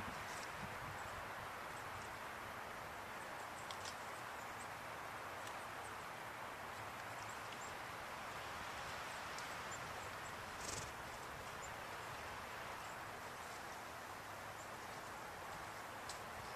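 Steady outdoor hiss of open-air ambience, with a few faint, short clicks and rustles.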